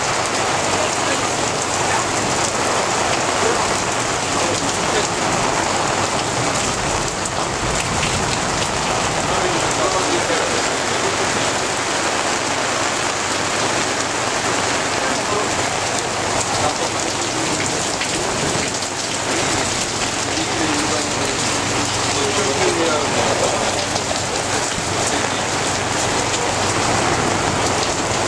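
Heavy rain pouring steadily during a thunderstorm, an even hiss of drops hitting the ground.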